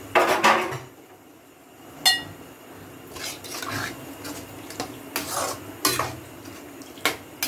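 Ladle stirring mutton pieces through wet masala in a coated kadai, scraping and knocking against the pan several times, with a sharp ringing clink about two seconds in.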